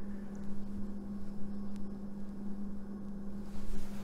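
A steady low hum with a faint hiss behind it.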